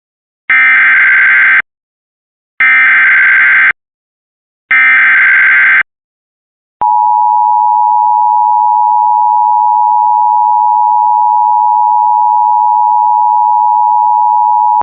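Emergency Alert System SAME header: three roughly one-second bursts of warbling digital data tones, about a second apart. About seven seconds in, a loud, steady attention tone starts and holds for some eight seconds, signalling a new severe thunderstorm warning.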